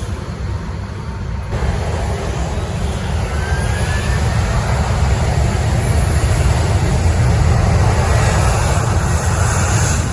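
Jet airliner passing close, its engine noise growing steadily louder, with a faint rising whine about three and a half seconds in.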